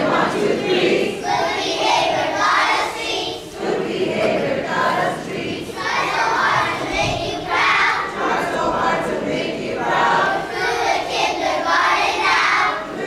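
A group of kindergarten children chanting together in short phrases, in a call-and-response chant that the audience answers.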